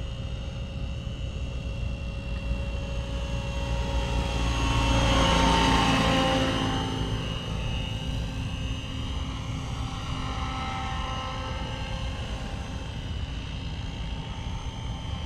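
Align T-Rex 700 RC helicopter's rotor and drive running in flight. It grows louder to a peak about five seconds in, its pitch falling as it passes, then keeps running at a steady level as it comes in to land.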